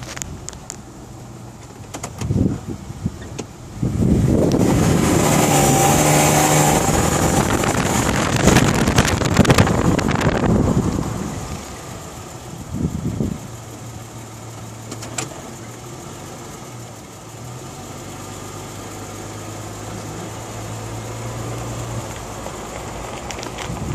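Isuzu Rodeo engine running at idle. About four seconds in it gets much louder for roughly seven seconds, with a high whine on top, then settles back to a steady idle. This is the strange whining noise the owner wants diagnosed; its cause is unknown.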